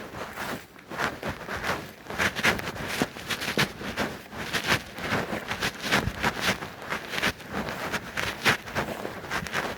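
Footsteps walking at a steady pace, about two short scuffing steps a second.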